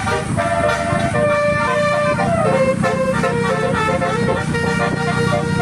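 Telolet bus horn, a Basuri-type multi-tone horn, playing a tune of held notes that step up and down in pitch, over a steady low hum.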